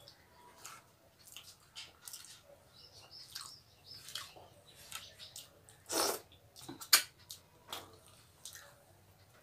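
Eating by hand: fingers scraping the last food off a plastic plate, with scattered small clicks and mouth smacks of chewing. A louder click comes about six seconds in and a sharp one about a second later.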